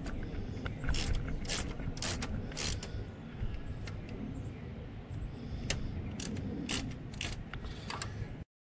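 Socket ratchet on a long extension turning a bolt near the water pump of a Jeep 2.5 L four-cylinder: sharp pawl clicks in short runs, over a low rumble. The sound cuts off suddenly near the end.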